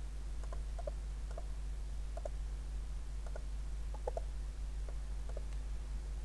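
Computer mouse clicking now and then, often in quick pairs, over a steady low hum.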